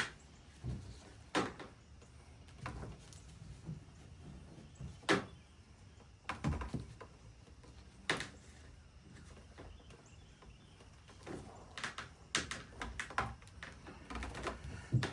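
Scattered light knocks and clicks from hands working a fish-finder transducer cable around a trolling motor's shaft and mount, several in quick succession near the end.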